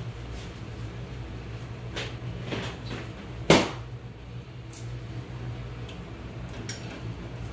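A few light clicks, then one sharp knock about halfway through and a few faint ticks after it, over a steady low hum.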